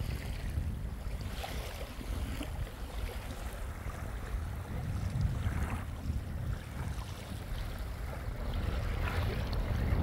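Wind buffeting the microphone in a steady low rumble, with small sea waves lapping at the shoreline in soft swells every few seconds.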